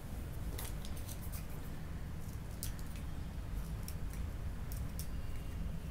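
Steady low hum of room noise, with a few light clicks scattered through it.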